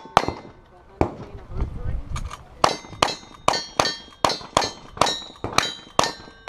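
Rapid gunshots at steel targets, each with the clang and short ring of the struck steel: a revolver's last shots, then a rifle firing about three shots a second from around two and a half seconds in.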